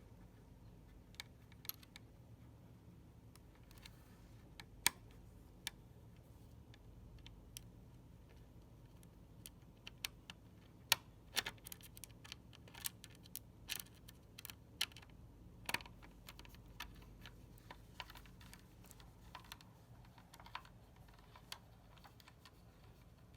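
Irregular light clicks and taps of hard plastic and metal computer parts being handled and fitted into place, with a bunch of quick clicks about halfway through.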